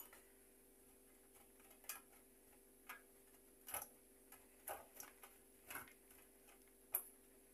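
Boiled liver being rubbed down a metal box grater: faint, short scrapes and taps, roughly one stroke a second.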